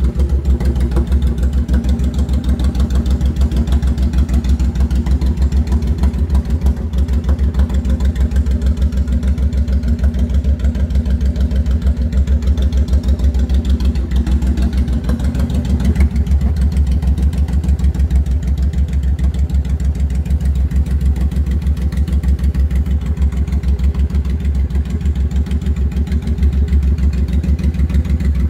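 Honda VTX1800's V-twin engine idling steadily through an aftermarket Cobra exhaust, with a deep, even pulse of firing strokes.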